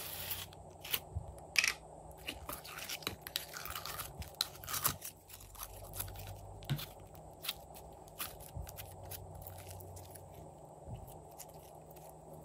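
Thick yellow slime being squeezed out of its plastic container and worked by hand, giving sticky crackles and pops: a dense run in the first five seconds or so, then sparser clicks.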